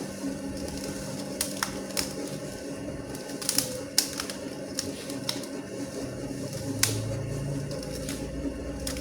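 Homemade dough mixer with a washing-machine gearbox running steadily with a hum, with irregular clicks and knocks over it.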